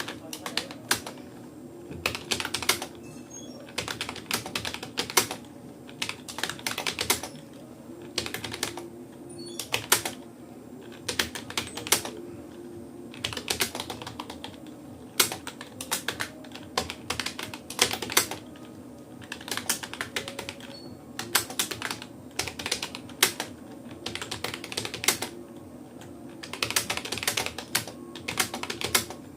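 Typing on a Rapoo computer keyboard: quick runs of key clicks lasting a second or two, broken by short pauses, over a steady low hum.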